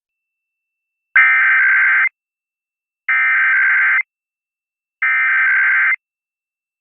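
Emergency Alert System SAME header data tones: three harsh, buzzing digital bursts of about a second each, a second apart, sent at the start of an EAS required weekly test.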